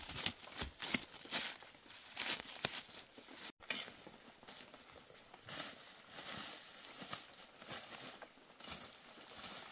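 Rustling, tearing and light knocking of handled plant material, with a few sharp snaps in the first second and softer, scattered rustles after. The sound cuts out for an instant about three and a half seconds in.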